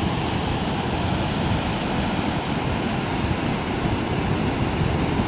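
Ocean surf washing onto the beach: a steady rush of wave noise.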